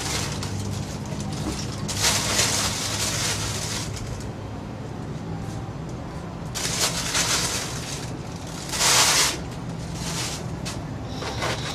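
Plastic bags rustling and crinkling in irregular bursts as takeaway food is unpacked by hand, the loudest burst about nine seconds in, over a low steady hum.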